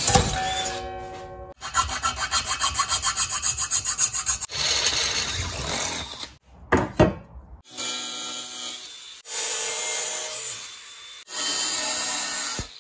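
A run of metalworking sounds on 2 mm sheet steel. First a cordless drill bores holes, its motor winding down, then chattering fast and evenly as the bit bites. After a couple of sharp knocks, a saw cuts the steel, and near the end an angle grinder's cut-off disc runs through it.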